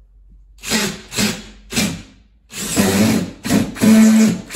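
Cordless drill running in trigger pulls as the French-cleat strip is fastened to the wall: three short bursts, then longer runs with brief pauses between them.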